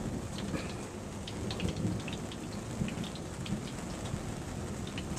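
Steady rain falling during a thunderstorm, with many scattered drop ticks and a low rumble of thunder beneath.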